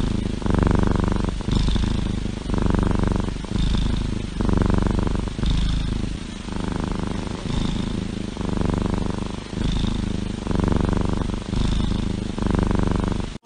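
Cat purring close to the microphone, a low rumble that swells and eases about once a second with each breath.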